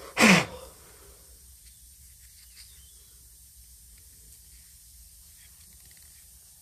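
A short, loud blast of compressed air from an air-compressor blow gun, about half a second long just after the start, blowing out a carburettor float bowl. Faint small handling sounds follow.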